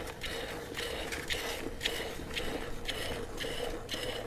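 A cow being milked by hand into a metal bucket: jets of milk squirting into the pail in a steady rhythm, about two squirts a second. A faint steady hum runs underneath.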